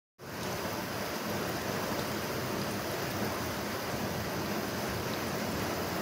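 Water rushing steadily along a narrow concrete irrigation channel.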